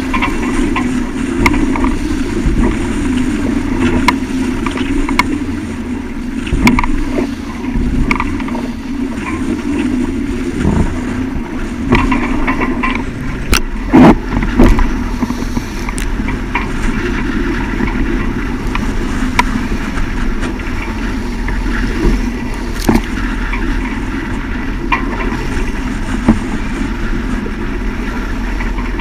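Steady wind and water noise aboard a small sailing yacht beating into a strong wind, with scattered knocks and two loud bangs about halfway through.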